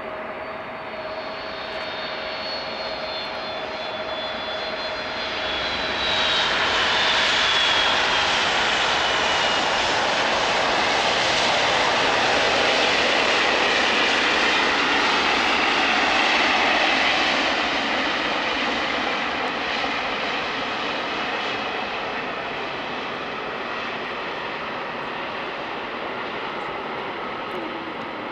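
UPS Boeing 757 freighter's twin jet engines during its landing rollout. A high whine falls in pitch over the first few seconds, then a loud rush builds and peaks as the aircraft passes, and fades slowly as it rolls away.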